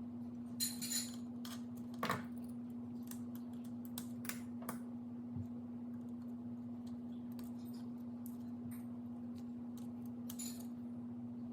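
Scattered small plastic clicks and brief scrapes as the buttons of a BMW E39 HVAC control panel are pried out and pressed back in with a small screwdriver, over a steady low hum.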